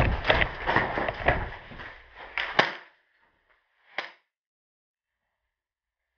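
Quick running footsteps with gear rattling, fading out over the first two seconds or so, then a sharp crack and a second one about a second and a half later.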